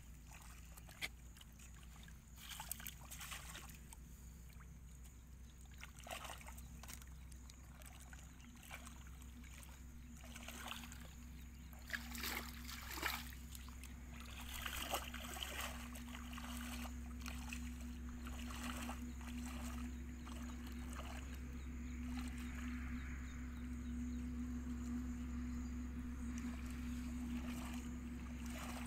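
Feet and a plastic basket splashing and sloshing in shallow muddy water, a few sharper splashes at intervals, over a steady motor hum that grows louder through the second half.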